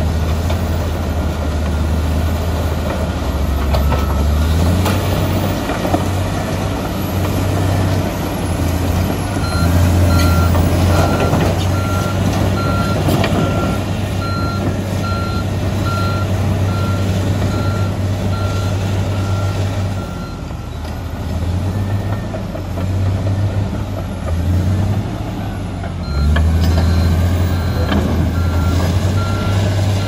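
Komatsu D85EX bulldozer's diesel engine running under load with a low, steady drone. Its reversing alarm beeps steadily from about a third of the way in to about two-thirds through, and again near the end, as the dozer backs up.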